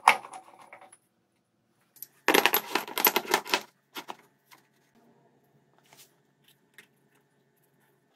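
Short rusty steel bars clanking against one another and the steel workbench as they are handled and laid down. There is a brief clatter at the start, then a louder run of metallic clinks and knocks about two seconds in that lasts about a second and a half, then a few light taps.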